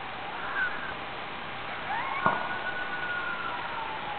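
A wolf howling: a short gliding note about half a second in, then a long, high, held howl starting about two seconds in that slowly slides downward near the end.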